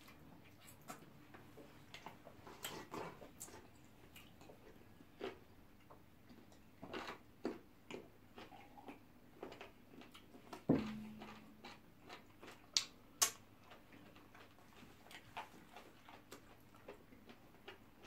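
Close-up eating sounds from people eating pounded yam and soup with their hands: scattered wet clicks and smacks of chewing and of fingers working the food. About halfway through comes one louder knock against a dish that rings briefly.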